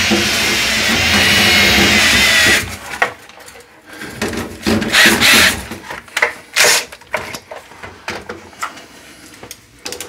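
Ridgid cordless drill spinning the dryer-vent cleaning rod and brush clockwise as the rod is pulled back down through the vent pipe. It runs steadily with a whine and stops abruptly about two and a half seconds in. Scattered knocks and rustles of the rod and lint follow.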